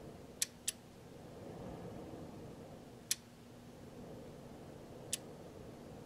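Noctua NF-A8 chromax 80 mm replacement cooling fan in an Icom IC-7300 transceiver running with a soft, steady whoosh of air. Sharp clicks come through it: two close together about half a second in, one about three seconds in and one near the end.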